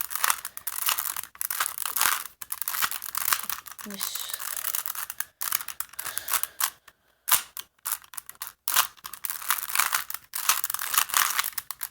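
Plastic 3x3 Rubik's cube being scrambled: rapid, irregular clicking and rattling of the layers turning, held close to the phone's microphone, with a few brief pauses.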